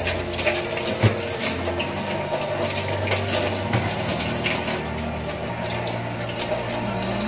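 Steady watery noise with a low hum beneath it, and a single knock about a second in.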